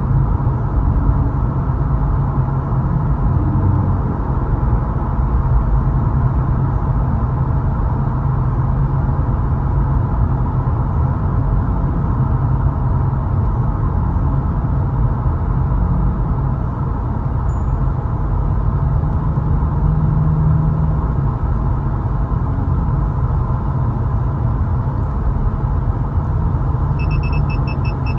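Steady road and engine rumble heard inside a car cruising at about 30 mph through a tunnel. About a second before the end a rapid electronic beeping starts: the radar detector on the windshield alerting.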